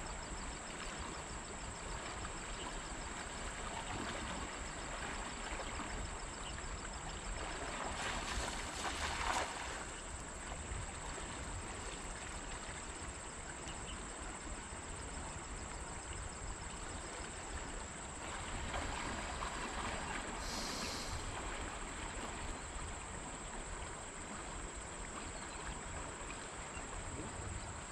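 River ambience: a steady, even rush of flowing water, with a thin high tone held throughout. There is a brief louder rush about eight to nine seconds in.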